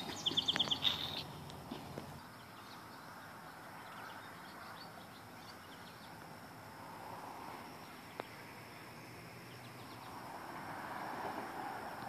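Quiet outdoor ambience, with a short run of quick bird chirps in the first second and a single faint click about eight seconds in.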